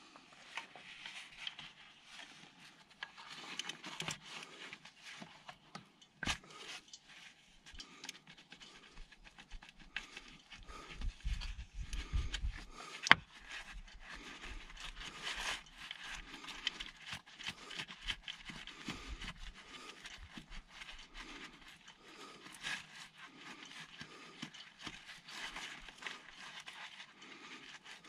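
Scattered scraping, knocking and small clicks of gloved hands and a tool handling parts on the underside of a car's automatic gearbox, with a brief low rumble a little before halfway and one sharp click just after it.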